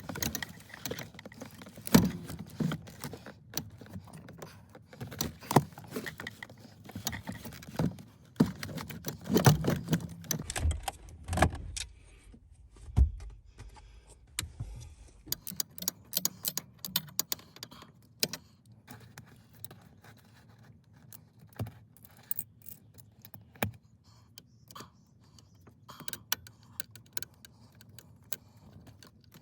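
Irregular metallic clinks, clicks and knocks of tools and parts being handled, dense and fairly loud for about the first twelve seconds, then sparser and fainter.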